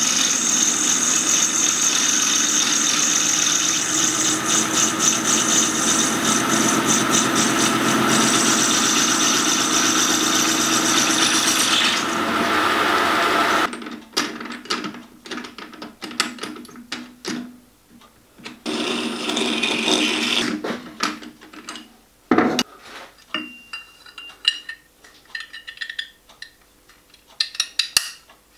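Metal lathe running with a tool cutting a small metal ring in the chuck: a steady machine hum and cutting hiss that stops abruptly about 14 seconds in. Afterwards there are scattered small metallic clicks and clinks as the ring is handled and tried on the dome casting.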